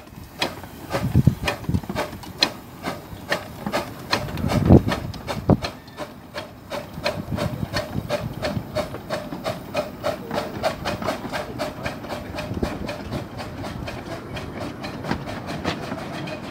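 15-inch-gauge miniature steam locomotive, a model of an LNER O4, pulling a train away, with a few heavy exhaust chuffs in the first five seconds. Then a steady run of wheels clicking over the rail joints, about five clicks a second, as the coaches roll past.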